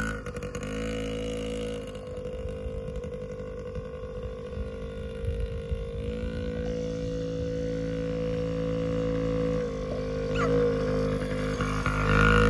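Yamaha PW50's small two-stroke single-cylinder engine running at a steady pitch as the bike rides off, fainter in the middle, then louder again near the end as it comes close.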